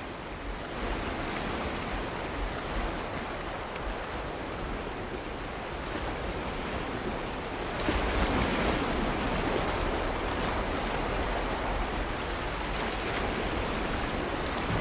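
Ocean surf washing onto a beach, a steady rushing noise that grows a little louder about eight seconds in.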